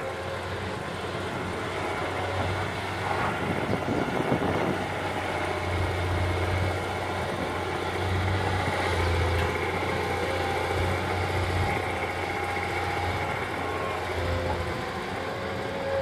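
Crawler hydraulic excavator's diesel engine running, swelling louder several times under load as the machine digs and swings. There is a brief rush of noise about four seconds in.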